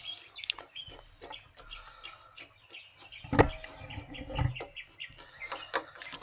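Light metallic clicks and taps of a line wrench on the brake line fittings of a master cylinder as they are worked loose, with one louder knock about three and a half seconds in.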